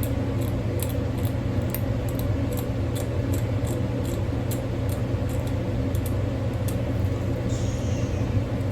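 A steady low hum with light, irregular clicks and scrapes, about two or three a second: a metal hand scaler working plaque off a Yorkie's teeth. Near the end there is a brief, faint falling sound.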